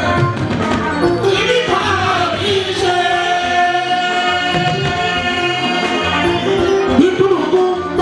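Live fuji music: a male singer sings over a band accompaniment, with one long held note through the middle.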